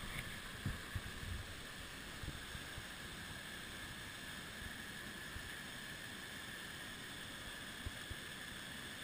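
Steady rushing of a waterfall pouring over its rock lip, with a few low wind bumps on the microphone in the first second or two.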